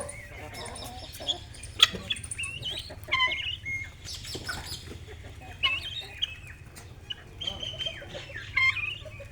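Chickens clucking with other birds chirping: many short, high calls overlap, over a steady low hum.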